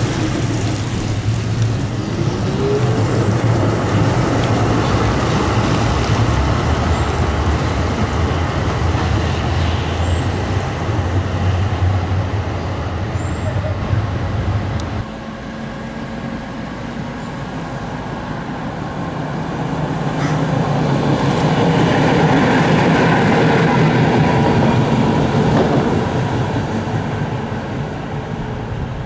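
Tram running. The sound drops abruptly about halfway through, then swells again for several seconds with a steady machine tone before easing off near the end.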